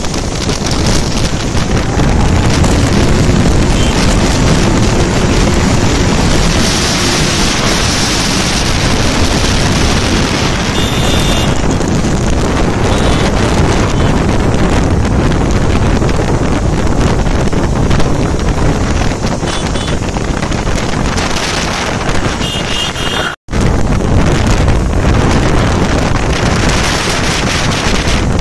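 Heavy wind buffeting the microphone at riding speed, over the steady running of several motorcycle engines. The sound drops out for an instant about 23 seconds in.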